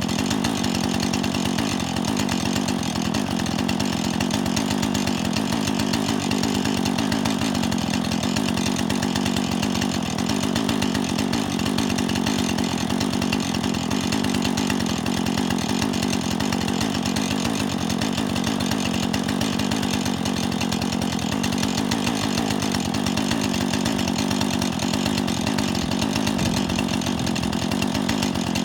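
Husqvarna 440e II two-stroke chainsaw running steadily, its engine speed unchanged.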